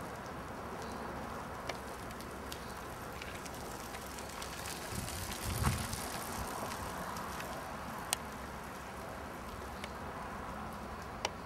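Bicycle tyres rolling over a fine gravel path, with scattered small crunches and ticks, as a cyclist approaches and passes close by. A brief low rumble about halfway through comes with the pass.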